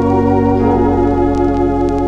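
Organ playing sustained hymn chords from a vinyl record, with a couple of faint surface clicks from the record.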